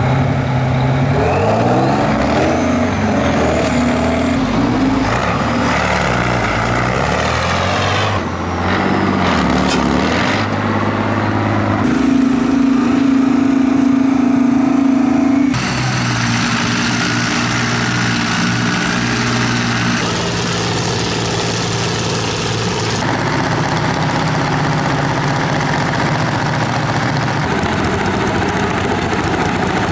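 Tractor engines revving and running hard under load in a string of short cut-together clips. The engine pitch rises and falls in the first few seconds, then holds steady for a while before the next cuts.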